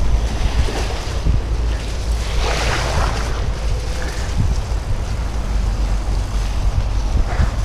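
Mountain bike running fast downhill on a muddy dirt trail: a steady low rumble of tyres and wind buffeting the microphone, with a few knocks from bumps and a louder hissing rush about two and a half seconds in.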